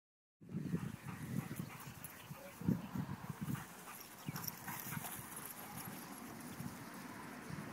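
Labrador retrievers whining and yelping in short, irregular bursts, excited at a game of fetch. The sound cuts in about half a second in, and the bursts are loudest in the first three seconds.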